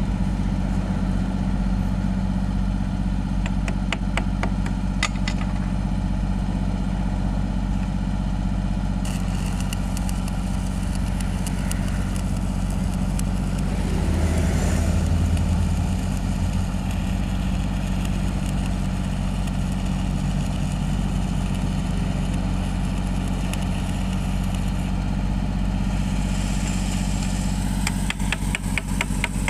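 Engine-driven welding generator running at a steady speed with a constant low drone. A crackling hiss joins about nine seconds in, and rapid clicking comes near the end.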